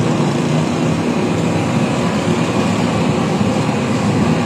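Strong wind blowing across the phone's microphone: a loud, steady rushing rumble, heaviest in the low range, as a rainstorm comes in.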